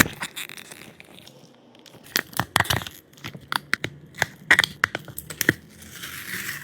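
Packaging being handled: crinkling and tearing with scattered sharp clicks and taps, in irregular clusters.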